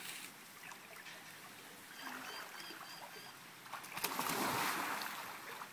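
A child jumping and flipping into a swimming pool: a splash about four seconds in as he hits the water, the churning water dying away over a second or so.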